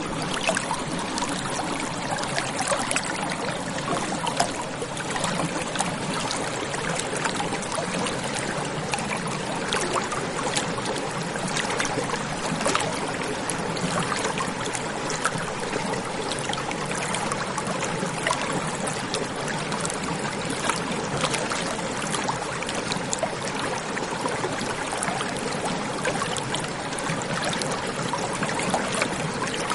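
Running water of a stream: a steady rush dotted throughout with many small splashes and gurgles.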